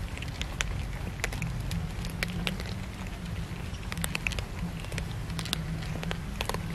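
Several cats crunching dry kibble from a metal bowl: a dense, irregular crackle of small clicks, over a low steady rumble.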